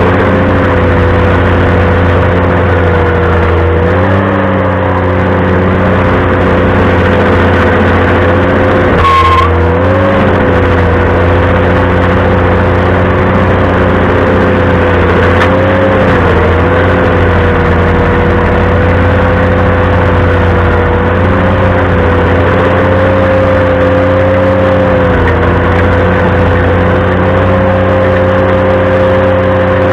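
Ventrac compact tractor running a stump grinder attachment at steady high engine speed. Its pitch sags briefly and recovers several times as the grinder takes load. A short high-pitched squeak comes about nine seconds in.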